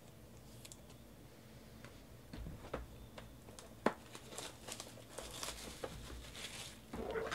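Cardboard trading-card hobby boxes being handled. After a quiet start there are light taps, clicks and rustling as the boxes are picked up, slid and set down, with one sharper tap about halfway through.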